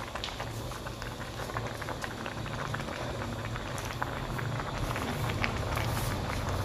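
Pot of papaya flower and chicken soup boiling: steady bubbling with many small pops over a low rumble, as handfuls of fresh leafy greens are pressed down into it.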